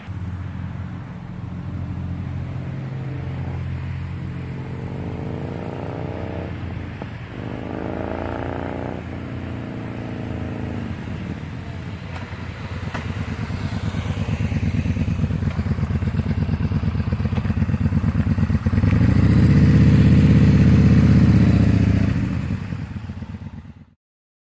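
Yamaha XV950 Bolt motorcycle's air-cooled V-twin through a Miller aftermarket exhaust. It runs steadily at first, then revs up three times in a row, each time rising in pitch and then dropping. It then comes closer and grows louder, is loudest as it passes near the end, and cuts off suddenly.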